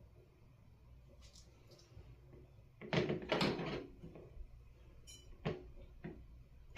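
Workbench handling noise: about three seconds in, a rustling clatter lasting about a second as something is moved or set down, followed by a few light clicks.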